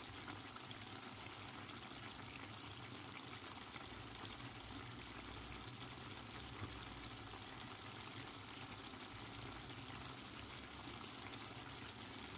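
Fish stew simmering in an open steel pot on the stove: a steady, soft bubbling of tomato broth around the fish steaks.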